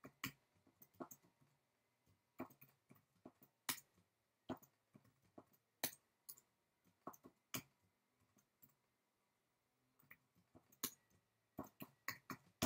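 Faint, irregular keystrokes on a computer keyboard as HTML is typed, with a quick flurry of keys near the end.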